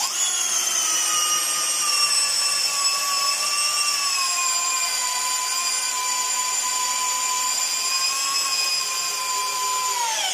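Parkside Performance X12V brushless cordless drill-driver driving a 10 x 240 mm screw into wood in one continuous run: a steady motor whine that sags slightly in pitch as the screw goes deeper, then winds down when the trigger is released at the end. It sinks the long screw without stalling.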